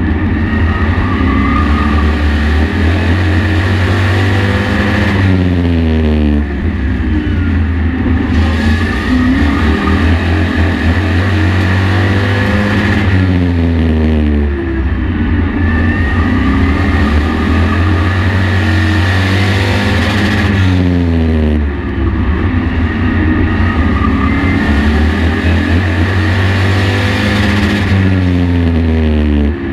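Race truck engine heard from the onboard camera, under racing load. The revs climb on each straightaway, then drop as the driver lifts into each corner, repeating about every seven to eight seconds.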